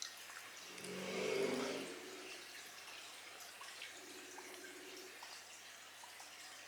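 Telephone ringback tone heard through a phone's speaker while a call to a mobile connects: a steady low buzzing ring about four seconds in, with the next ring starting near the end, about three seconds apart. A louder, briefer pitched sound comes about a second in.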